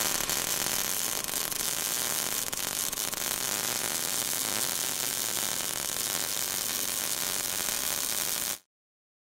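MIG welding arc crackling and hissing steadily, then cutting off suddenly near the end.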